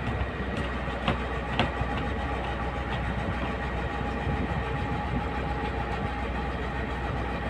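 Komatsu PC71 excavator's engine running steadily, with two sharp knocks about a second in.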